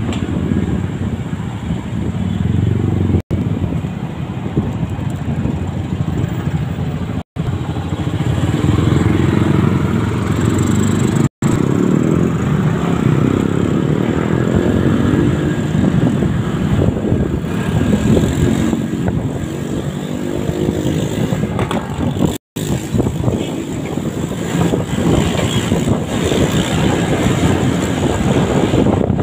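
Motorcycle engine running with heavy wind and road noise, heard from on board while riding; the sound cuts out for a split second four times.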